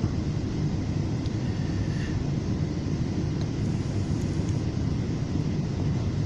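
Steady low rumble inside a FrontRunner commuter train coach rolling slowly alongside a station platform.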